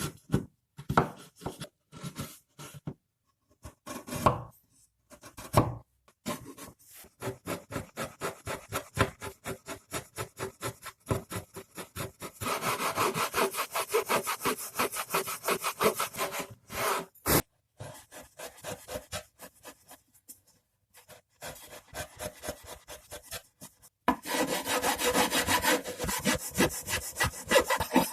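Hand file working the edge of a wooden loudspeaker panel in quick back-and-forth strokes, stopping briefly a few times, to take the edge down flush with the back panel. The strokes get heavier about halfway through and again near the end.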